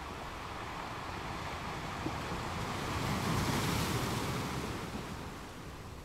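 Muffled rushing of water heard underwater, a steady hiss that swells for about two seconds in the middle and then settles back.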